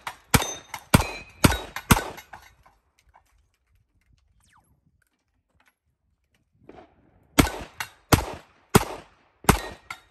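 Revolver being fired rapidly at steel plate targets: a string of four shots a little over half a second apart, a pause of about five seconds, then another quick string of shots near the end.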